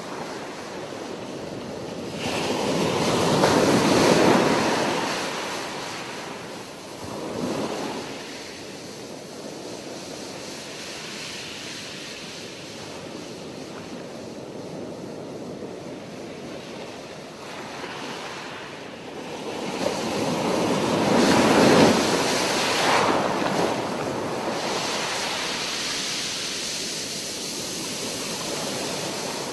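Ocean surf: waves washing ashore in a steady hiss, with two bigger waves breaking, one a few seconds in and one about two-thirds of the way through.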